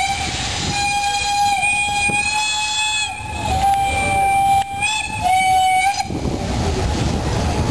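Steam locomotive whistle blowing a run of long blasts with short breaks between them: one steady high tone that dips slightly in pitch at each break, cutting off suddenly about six seconds in. A low rumble of the train carries on underneath.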